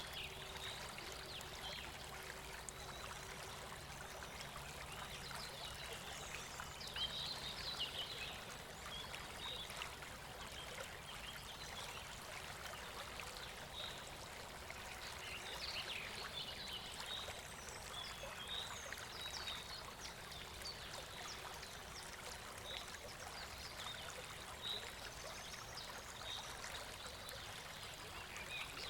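River water flowing steadily. Short high chirps sound now and then over it.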